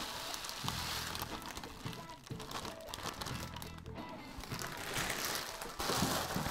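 Clear plastic bag crinkling as granular case-tumbling media is poured from it into a vibratory tumbler's bowl, over background music.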